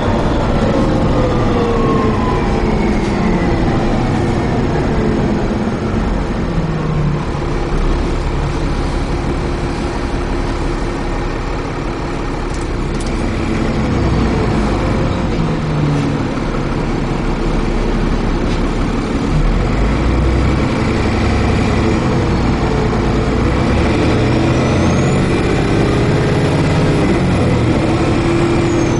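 Dennis Trident 2 double-decker bus running, heard on board: steady diesel engine and drivetrain rumble, with whining tones that fall in pitch in the first few seconds and a high whine that rises and falls near the end.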